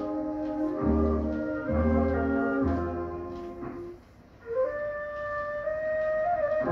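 Instrumental passage of a vintage Thai popular song played from a 45 rpm record: band chords over a bass line break off briefly about four seconds in, then a solo flute enters with a rising phrase and a long held note.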